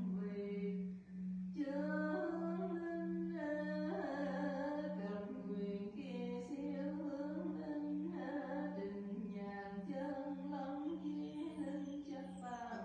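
A voice singing a slow melody in held, stepping notes, over a steady low drone that pulses about twice a second.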